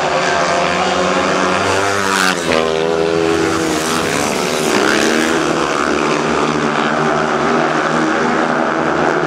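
Several speedway motorcycles' 500 cc single-cylinder methanol engines racing together, their pitch rising and falling as the riders throttle off and on.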